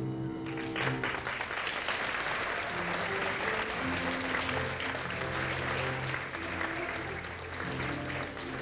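Audience applause breaking out about a second in and fading near the end, over instrumental music from the show's band playing held notes.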